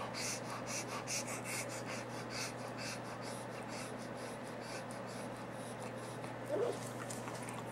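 Dog panting quickly in short breaths, about three a second, fading after the first few seconds, over a steady low electrical hum. A brief louder sound comes near the end.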